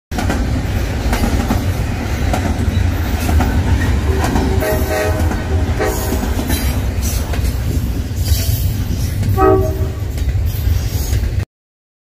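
Double-stack container freight train rolling past: a steady low rumble with wheels clicking over rail joints. Short train-horn blasts sound about five seconds in and again briefly near the end, and the sound cuts off suddenly.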